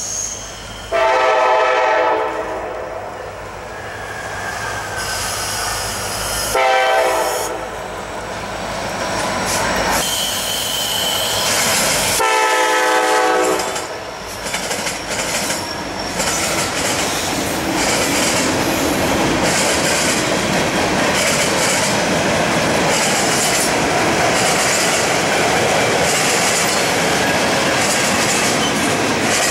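Norfolk Southern freight locomotives sounding their air horn three times, a long blast, a short one and another long one, over the rumble of the diesel engines. After the last blast about halfway through, the train's tank cars roll past with a steady rumble and clickety-clack of wheels on rail joints.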